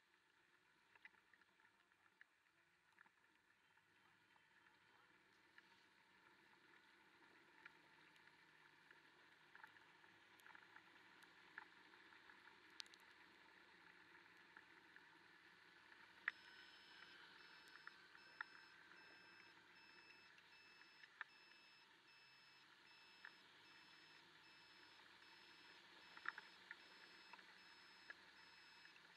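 Near silence: a faint hiss of the ride with scattered light ticks. About halfway in, a faint high electronic beep starts and repeats rapidly.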